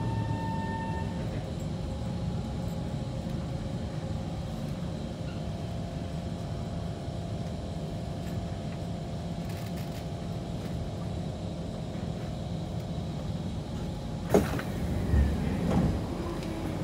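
Kawasaki C151 metro train's traction motor whine falling and fading out as the train slows, leaving a steady rumble and hum from the train. About 14 seconds in comes a sharp clunk, followed by a couple of thumps.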